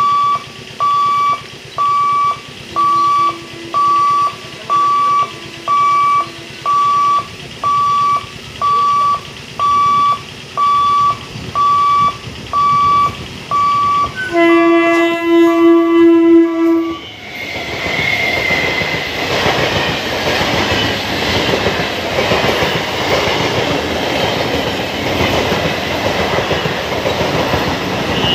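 A level-crossing warning alarm beeps evenly, a little under once a second. About 14 seconds in, the horn of an electric multiple unit (EMU) local train sounds loudly for about three seconds. The train then runs close past with steady wheel-and-rail noise.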